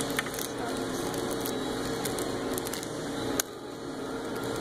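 Plastic wrappers of Shopkins toy packs crinkling as they are handled and pulled open, with scattered small clicks and one sharp click about three and a half seconds in, over a steady low hum.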